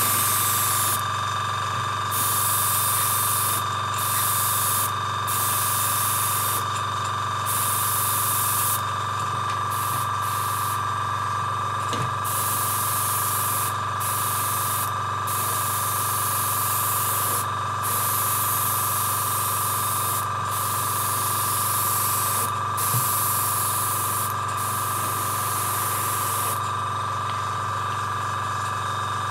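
Airbrush spraying paint in repeated short passes, the air hiss starting and stopping every second or two as the trigger is worked. A steady hum runs underneath.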